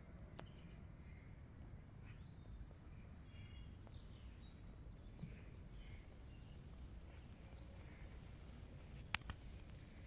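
Faint outdoor ambience: a low steady rumble of wind with scattered faint, distant bird calls, and a single sharp click about nine seconds in.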